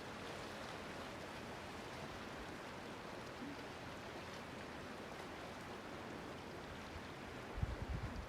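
Steady wash of seawater at a small harbour, an even hiss without a pitch. A few low thumps come in near the end.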